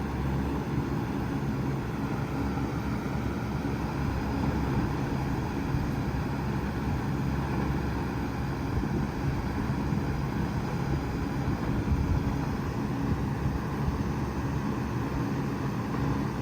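2019 Bard 5-ton wall-hung heat pump running steadily in cooling mode: a constant compressor hum under the even rush of its fan.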